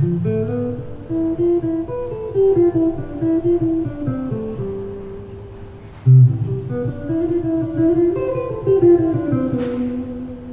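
Guitar music: a plucked melody over quick, rhythmic low strummed notes, the phrase starting over about six seconds in.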